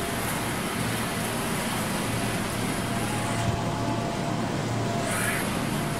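Steady background din of a busy wholesale market: a constant rumble and hiss with no distinct events.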